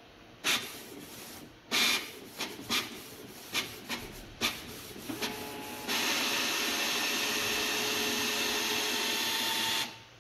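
Canon PIXMA G3010 inkjet printer's mechanism clicking and clunking several times, then running steadily for about four seconds before stopping abruptly.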